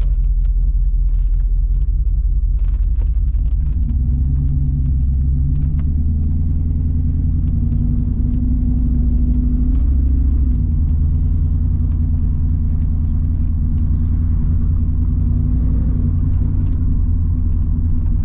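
1994 Pontiac Firebird Trans Am's LT1 V8 running under way, heard from inside the cabin. Its pitch steps up about four seconds in and then holds steady.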